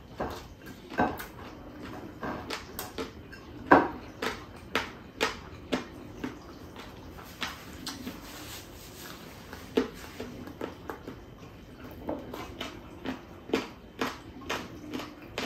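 Close-up mukbang eating sounds: wet chewing and lip smacking while eating rice and chicken adobo by hand, in irregular short smacks one to three a second, with a light clink of tableware now and then.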